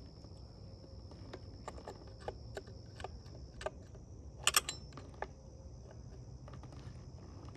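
Scattered light metallic clicks and clinks of a scrench working the bar and chain tensioner of a STIHL 462 chainsaw as the chain is loosened. The loudest is a quick double clink about four and a half seconds in.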